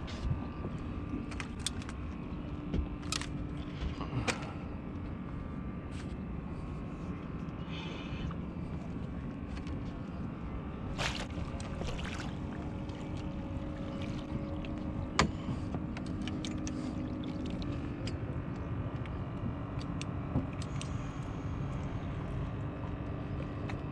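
A boat's motor running steadily: a low rumble with a steady hum over it, and scattered light clicks and knocks, the sharpest about fifteen seconds in.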